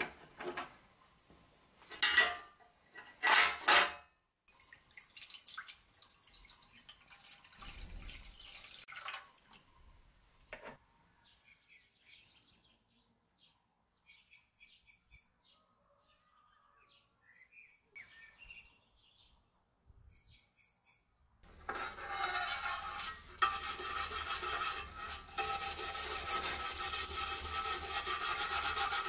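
A stiff brush scrubbing rusty steel scissors in an enamel pan of liquid, a loud fast rasping that starts about three-quarters of the way through. Before it, sharp metal clinks of the scissors against the pan.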